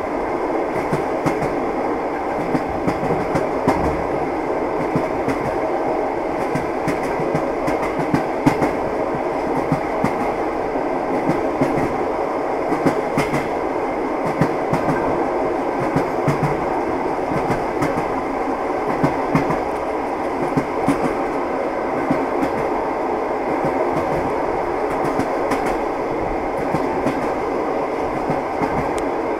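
Train rolling steadily along the rails: an even running noise with frequent, irregular clicks and knocks from the wheels and track.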